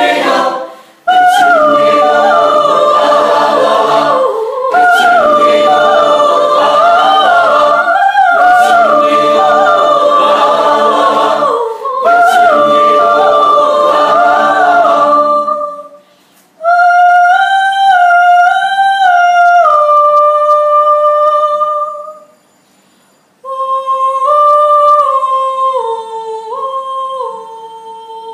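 Kachin choir singing a cappella in several parts. About two-thirds of the way through it thins to a single high melody line, sung in two phrases with a short pause between them. The last phrase fades away at the end.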